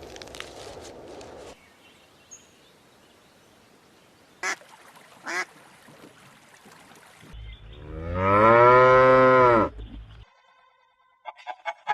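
A cow mooing: one long call of about two and a half seconds, starting about seven seconds in, its pitch rising and then falling.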